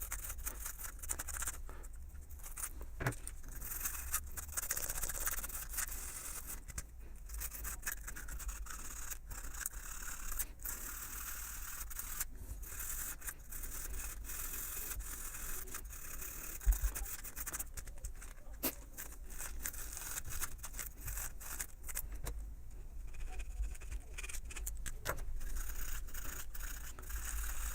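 Sandpaper rubbed by hand over the steel laminated core of a magnetic contactor, irregular scraping strokes with a few short pauses. It is scouring rust and greasy grime off the core's mating face, the poor contact that makes the contactor hum.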